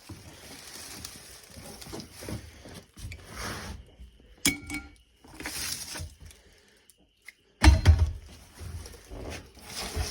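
Tools being handled while working up a boat's soft floor: scattered clinks, scrapes and knocks, one brief ringing clink about halfway, and a louder heavy knock with scraping near the end.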